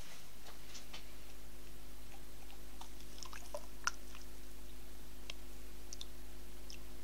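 Melted soy wax poured from a pitcher onto chunks of candle dye in a plastic jug, giving scattered small clicks and ticks, mostly from about three seconds in. A steady low hum runs underneath.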